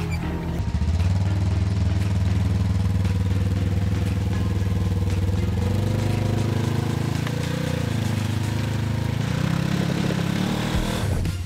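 Side-by-side utility vehicle's engine running under load as it drives through snow; the engine note holds steady, then rises and falls a few times from about halfway through.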